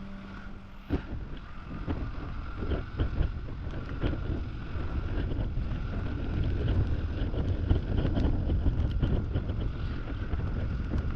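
Wind buffeting the microphone on a moving motorcycle, over a steady rumble of engine and road noise.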